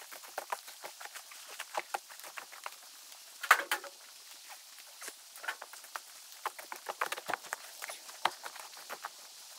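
Irregular light patter of drips from melting snow, many small ticks at uneven intervals. One louder knock comes about three and a half seconds in.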